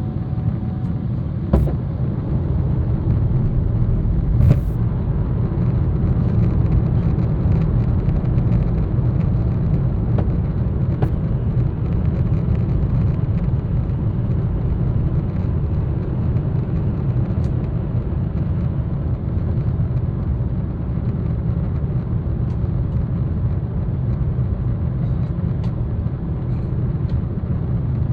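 Steady low drone inside the cabin of a Boeing 777-300ER airliner in flight, engine and airflow noise, with a few brief clicks in the first several seconds.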